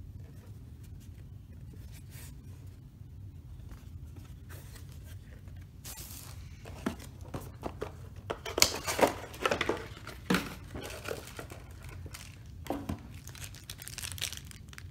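Packaging being handled: plastic bags crinkling and cardboard box parts rustling in a quick run of crackly strokes that starts about halfway in, with a few more near the end. Under it runs a low steady room hum.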